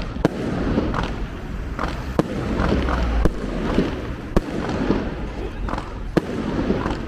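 Fireworks going off: about five sharp bangs at uneven gaps of one to two seconds, with crackling in between.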